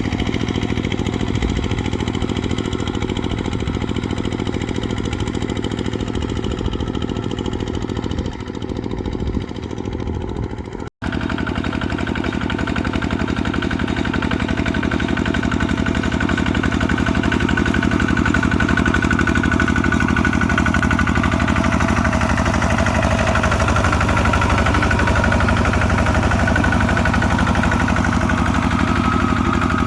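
Kubota RT140 single-cylinder diesel engine running steadily. The sound breaks off for an instant about a third of the way in, and the engine is a little louder after the break.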